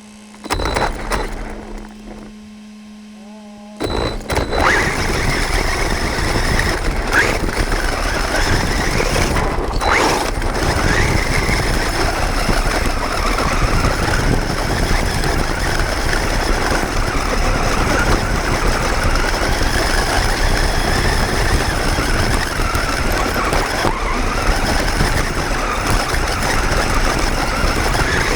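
An HSP Brontosaurus electric RC monster truck driving, heard from a camera mounted on the truck itself. About four seconds in, after a short quieter stretch with a steady hum, a loud rush of running noise starts. Over it a motor and gear whine rises and falls with the throttle.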